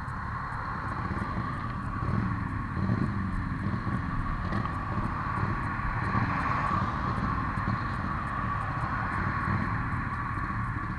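Motorcycles idling at a standstill: a muffled low rumble under a steady hum.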